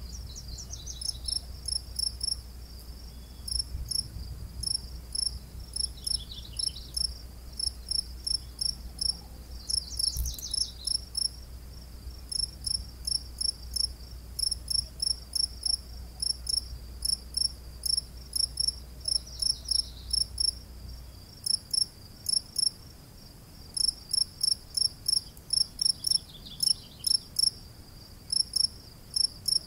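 Cricket chirping in short, evenly repeated high pulses, several a second, with brief pauses now and then. A few short falling trills sound over it, and a low rumble underneath stops abruptly about two-thirds of the way through.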